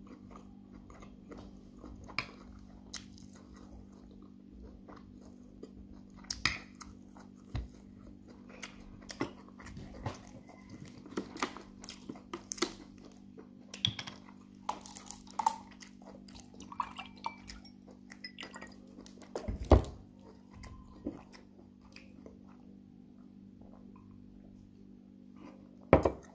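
Close-miked eating sounds: chewing and lip smacking on a mouthful of jollof rice, with many short scattered clicks and a louder knock about two-thirds of the way through and another near the end, over a steady low hum.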